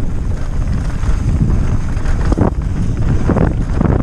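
Wind buffeting a helmet camera's microphone during a fast mountain-bike descent, a loud low rumble, with knocks and rattles from the bike on the rough trail.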